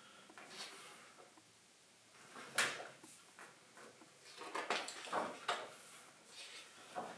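Pages of a cookbook being turned by hand: several short papery swishes, the loudest about two and a half seconds in and a cluster of them around five seconds.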